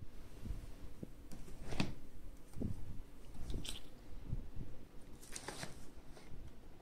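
Cardboard graphics-card box handled and turned over in the hands: scattered rustles, scrapes and soft knocks, the loudest about two seconds in and again about five and a half seconds in.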